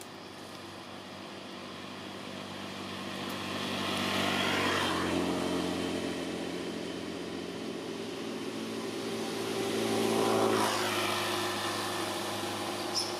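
Two motor vehicles passing by one after the other: engine noise swells to a peak about four to five seconds in, fades, then swells again about ten seconds in and fades.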